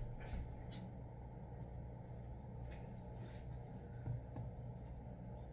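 Quiet small-room tone with a steady low hum and a few faint, light knocks and clicks scattered through it.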